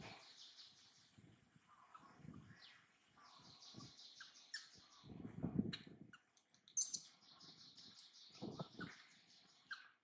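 Birds chirping in quick repeated trills, two long runs of high notes. Low thuds come and go underneath, the loudest about halfway through and again near the end.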